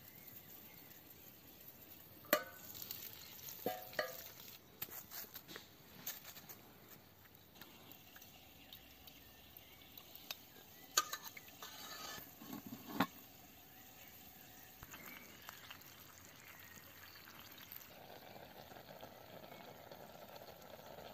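Light clinks and knocks of metal cookware being handled over a campfire, a few short ringing clinks scattered through, with a faint steady hiss near the end.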